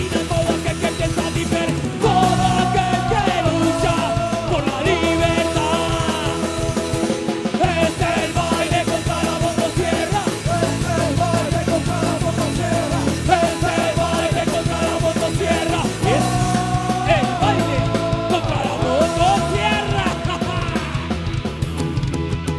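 Anarcho-punk band playing live: distorted electric guitars, bass and drums, with a lead vocal sung and shouted in two stretches, one starting about two seconds in and another past the middle.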